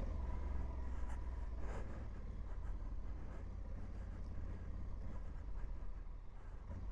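Honda Africa Twin motorcycle ridden along a dirt trail, its engine a muffled low rumble with scattered light clicks.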